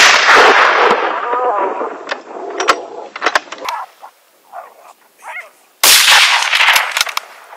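A rifle shot at the very start with a long rolling echo, then a second rifle shot about six seconds in, also echoing away, fired at a coyote.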